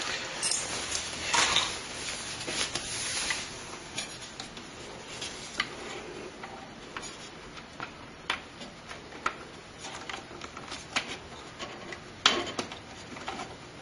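Hands handling computer parts and cables: scattered clicks, light knocks and rustling of plastic and metal, busiest in the first few seconds and with a louder knock near the end.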